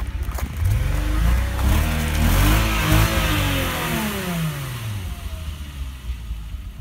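Mercedes-Benz Vito W638's 2.8-litre V6 (engine 104.900) revved once. The engine speed climbs over about two seconds, peaks, and falls back to a steady idle about five seconds in.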